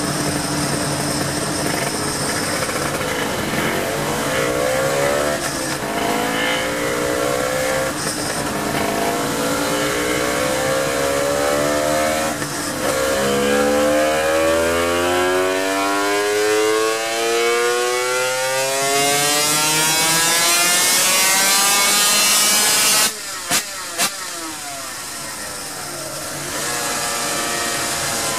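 Honda NSR250R (MC21) two-stroke V-twin at full throttle on a motorcycle dyno. Its revs climb in several short rises, then in one long rise to high revs. Near the end the throttle is shut suddenly, there are two brief blips, and it settles to lower revs.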